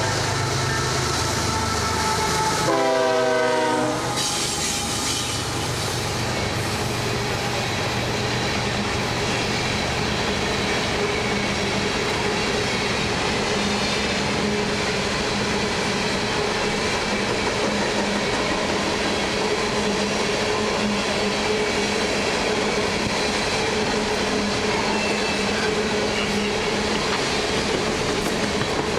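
BNSF diesel locomotive horn sounding as the train approaches: a short blast right at the start, then a longer one from about 2.5 to 4 seconds. After that comes the steady noise of the locomotives and a long string of coal hopper cars rolling past on the rails.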